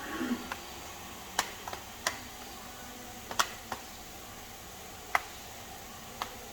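A handful of sharp, light clicks, about eight, scattered unevenly over a steady faint hiss. The loudest comes about halfway through.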